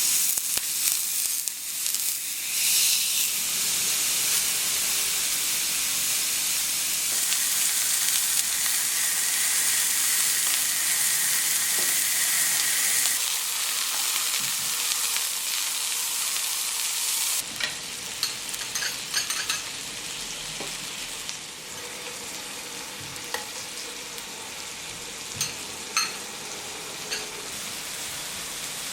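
Cod fillet frying in a hot pan: a sizzle that starts suddenly and is loud at first. A little over halfway through it drops to a quieter sizzle with scattered pops.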